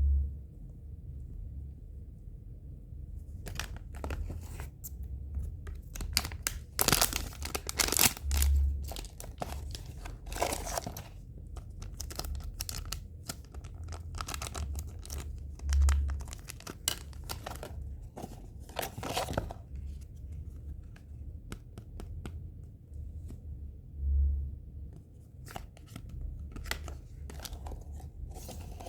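Blind-box packaging being torn open and crinkled by hand, in irregular bursts of rustling and tearing with short pauses between. Low thuds come now and then underneath.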